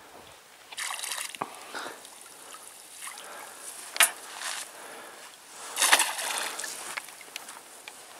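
Square lift net on a pole being hauled up out of a river and let back down: water sloshing and trickling off the mesh, with two louder splashes about four and six seconds in.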